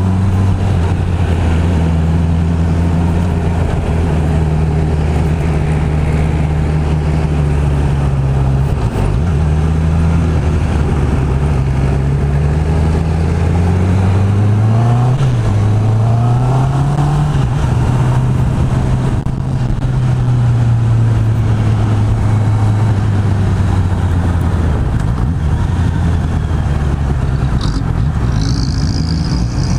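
Honda CB650R's 649 cc inline-four engine through its stock exhaust while riding: the engine note climbs about halfway through, dips sharply once as a gear is changed and rises again, then holds steady before easing off and picking up again near the end.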